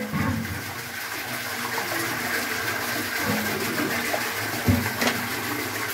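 Water rushing and splashing steadily through a small Pelton turbine as it spins, with a couple of short knocks about five seconds in.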